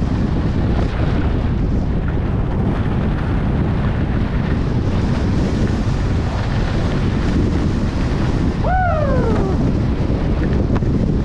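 Wind buffeting the microphone of a skier's camera at about 30 mph, a loud steady rush. About nine seconds in, a short tone falls in pitch over it.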